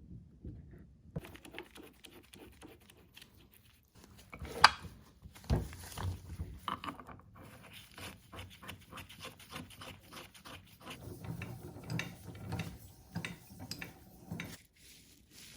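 Metal parts of a Charles Parker bench vise being fitted onto its base: clanks and knocks, the loudest about five seconds in, then a run of light clicks and rubbing as the parts are worked together.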